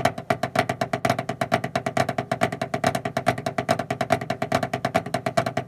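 Drumsticks playing flammed mills on a homemade practice pad: a fast, even run of strokes, about nine a second, alternating right- and left-hand flams. Each stroke has a slight pitched ring. The playing stops suddenly at the very end.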